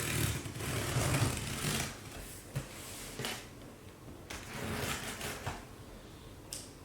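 Rustling and handling of a large cardboard box and its packaging, with scattered light knocks and clicks.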